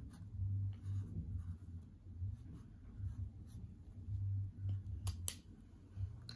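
Felt-tip marker drawing on a paper towel: faint, short scratchy strokes with soft bumps from the table. About five seconds in there are two sharp clicks as the markers are handled.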